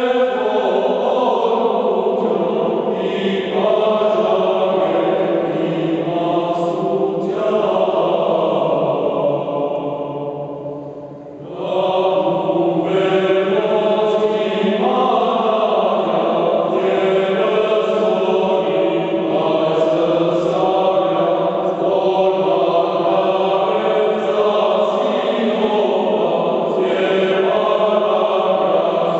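Male choir singing an unaccompanied Armenian Christmas hymn in a slow, chant-like style. A phrase dies away about ten seconds in, and the singing resumes a second or so later.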